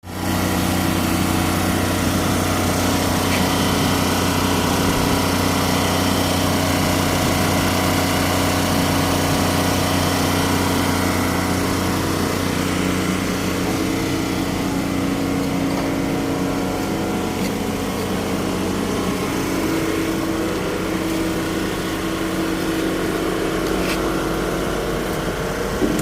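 Construction machine's engine running steadily, a held, even hum.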